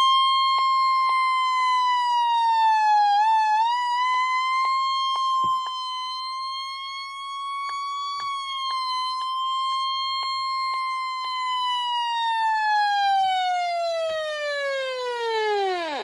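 Early Midland 74-109 weather radio sounding its alert test tone: a loud, steady electronic tone near 1 kHz that wavers briefly about three seconds in, then slides down in pitch over the last two seconds and cuts off.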